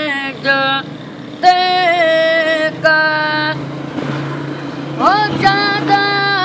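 A boy singing an Urdu devotional dua unaccompanied, drawing out long held notes with wavering ornaments. Halfway through he breaks off for about a second, then swoops up into the next phrase.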